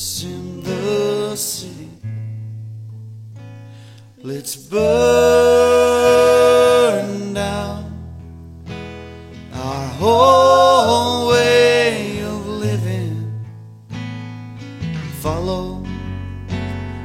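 A song: acoustic guitar and bass with long held sung notes.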